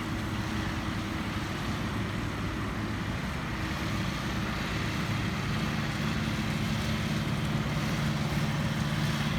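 Tractor engine running under load while baling, its note growing a little stronger about halfway through, over a steady hiss of motorway traffic.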